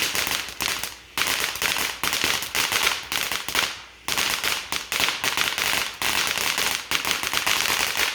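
Consumer firework going off in a rapid, dense string of cracking bangs, like a long string of firecrackers, with brief lulls about a second in and about four seconds in. The bangs stop suddenly at the end.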